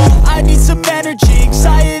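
Hip-hop backing music with a heavy bass line and a steady beat, and no vocals; the bass drops out briefly about a second in, then comes back.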